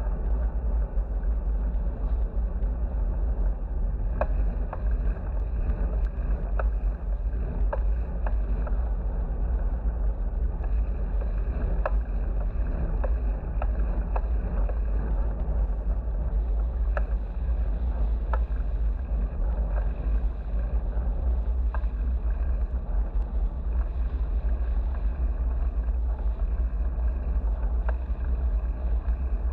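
Wind rumbling steadily on the microphone of a GoPro carried on a moving bicycle. A few faint clicks come through at odd moments.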